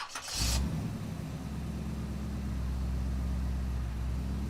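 A short burst of hiss, then an engine running steadily at a low, even idle.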